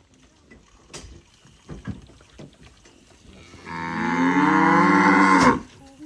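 A cow moos once, a long loud call beginning about three and a half seconds in and dropping in pitch as it ends. Before it there are only a few faint knocks.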